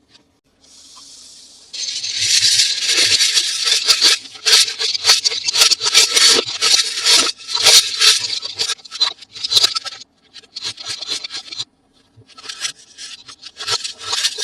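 Toy packaging being handled and opened by hand: dense crackling, rubbing and scraping with many sharp clicks, in irregular bursts. The sound stops for a moment about two-thirds of the way through, then starts again.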